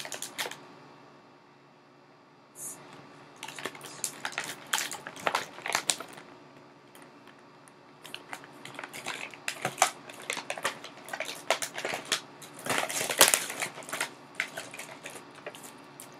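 Toy packaging being handled and opened: crinkling plastic and paper with small clicks and taps in irregular clusters. There is a quiet stretch near the start and a busier spell about three-quarters of the way through.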